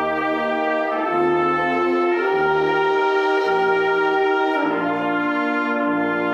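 Brass band playing a slow hymn in full, sustained chords, with the low brass moving to a new bass note about every second.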